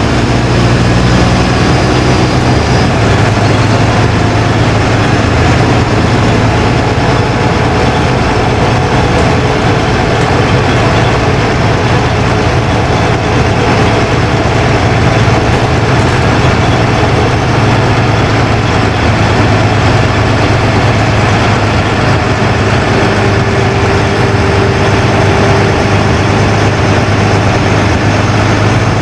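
Cabin noise inside a LiAZ-5292.20 low-floor city bus: its diesel engine gives a steady low hum under continuous running noise, with a faint whine for a few seconds near the end.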